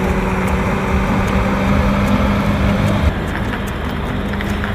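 Diesel engine of a Volvo concrete mixer truck running steadily as the truck drives slowly, a low rumble with a steady hum, easing slightly about three seconds in.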